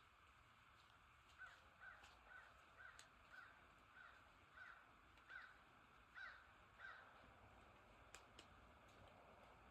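Faint bird calls: about ten short, harsh calls at the same pitch, roughly two a second, that stop about two-thirds of the way through. Two sharp ticks follow shortly after.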